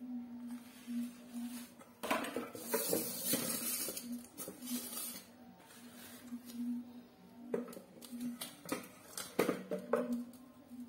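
Kitchen handling sounds: a few seconds of scraping and rustling as a wooden cutting board is set down on a stainless steel bowl, then several sharp knocks near the end as a knife cuts through taro stalks onto the board. A faint low hum pulses underneath.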